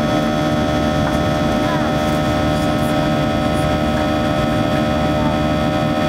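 Boeing 737-800's CFM56-7B turbofan engines at climb power, heard inside the cabin: a steady rushing drone with several steady whining tones over it.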